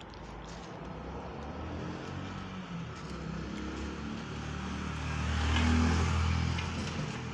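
A motorcycle passing on the road: its engine hum builds steadily, is loudest about six seconds in, then begins to fade.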